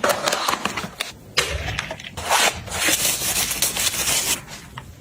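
Rustling and scraping of objects being handled, with a sharp knock about a second and a half in and a steady hiss for about two seconds in the middle.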